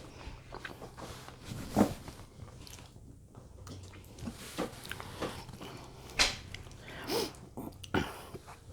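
Close-up eating sounds: a person chewing food, with scattered wet mouth clicks and smacks, the loudest about two seconds in and about six seconds in.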